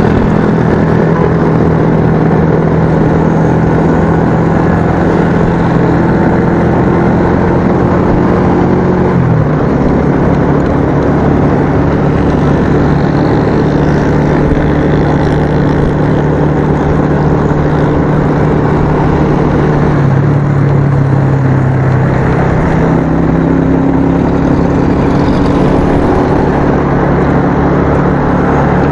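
Motorcycle engine running at riding speed, heard from a helmet-mounted camera with wind noise over it. The engine note drops suddenly about a third of the way in and shifts again about two-thirds through.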